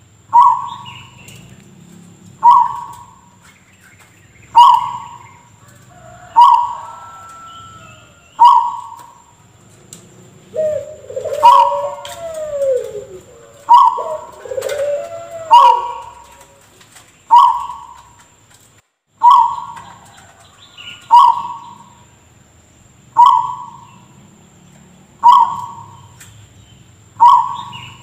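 Zebra dove (perkutut) giving a short, sharp, cough-like call, repeated about every two seconds. Around the middle, lower gliding cooing notes come in between the coughs.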